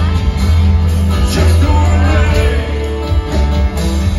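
Live band playing amplified rock music with a heavy bass line, guitars and a singing voice.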